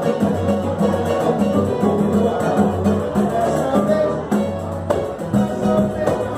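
Live soul-samba band music led by a cavaquinho, over a steady, rhythmic bass pulse.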